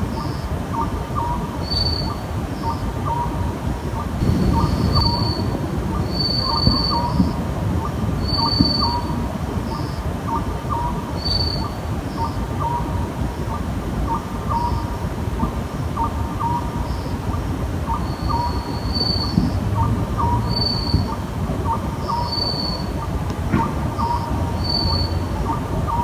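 Oriental scops owl calling at night: short hollow notes repeated in steady phrases about once a second. A thin high note sounds every second or two, over a steady low background rumble.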